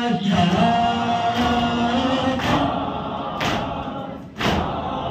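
Crowd of men chanting a noha together, then beating their chests in unison (matam), a loud slap about once a second. The chanting fades out about halfway through while the slaps go on.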